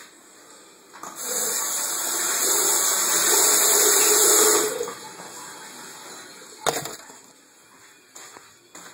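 Toilet flushing: a loud rush of water for nearly four seconds, then dying down to a quieter run. A single sharp knock comes a couple of seconds after the rush ends.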